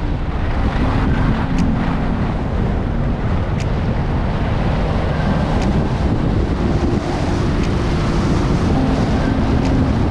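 Wind buffeting the microphone of a camera skiing fast downhill: a loud, steady rush with the hiss of skis on packed groomed snow underneath and a few faint ticks.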